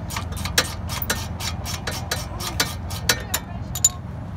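Socket ratchet clicking in quick, uneven runs as it is swung back and forth to back out a lower front brake caliper bolt.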